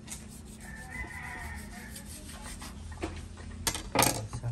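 A kitchen knife scraping and slicing through the skin of a whole tra catfish in a steel bowl, in soft repeated strokes. Near the end there are a few louder knocks as the knife is set down on the wooden table and the fish is handled.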